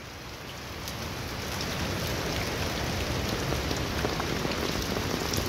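Heavy rain falling on an open umbrella overhead, a steady hiss with scattered sharp drop ticks, growing louder over the first couple of seconds and then holding steady.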